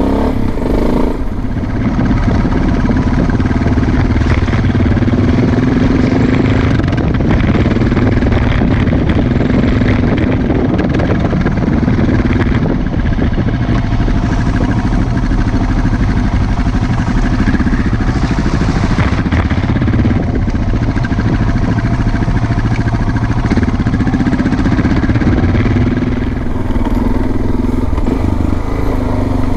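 Suzuki DR650's single-cylinder four-stroke engine running steadily as the motorcycle is ridden along a muddy dirt road.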